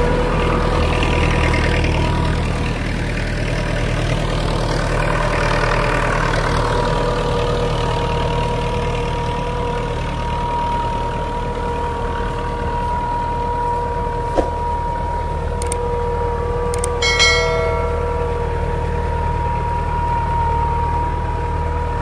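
IMT 565 tractor's diesel engine running steadily under load while pulling a plough through stubble. A short click comes past the middle, followed a few seconds later by a brief metallic ring.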